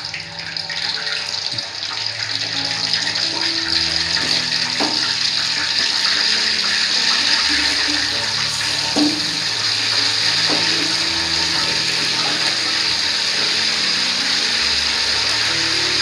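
Tilapia pieces frying in hot oil in a wok: a steady sizzle that builds over the first few seconds as the fish goes in, then holds. A few light knocks of a utensil against the wok come through it.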